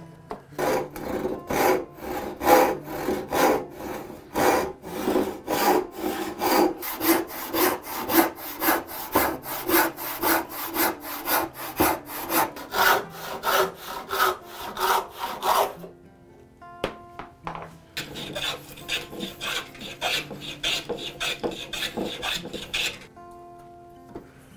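Handsaw cutting a hardwood board clamped upright in a vise: a steady run of rasping saw strokes, about two to three a second, that stops about two-thirds of the way through. After a short pause with a few clicks, a few seconds of quicker, lighter scraping follow.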